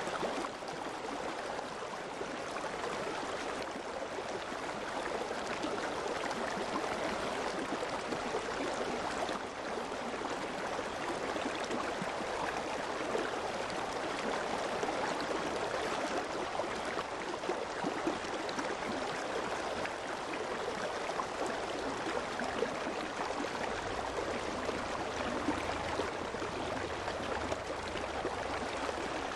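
Steady rain falling at night, a dense, even patter of drops that holds at the same level throughout.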